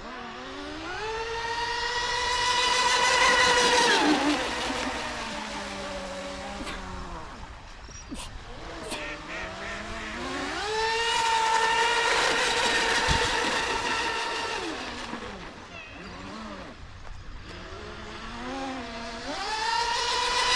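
Small electric RC speedboat's motors whining as it runs at speed on 3S with 38 mm props. The whine rises in pitch as the throttle opens, holds high, then falls off as it slows, twice, and rises again near the end.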